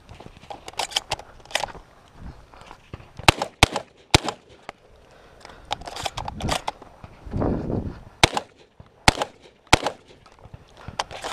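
12-gauge shotgun shots in quick strings: three shots within about a second, about three seconds in, then three more a little over half a second apart from about eight seconds in and one near the end, with lighter knocks between.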